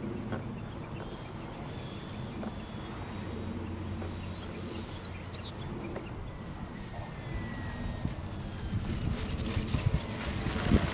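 Electric RC model warbird, a ROC Hobby F2G Super Corsair, coming in to land: a faint motor and propeller whine falling in pitch, then rough rumbling and rustling near the end as it touches down and rolls on grass. A bird chirps briefly about halfway.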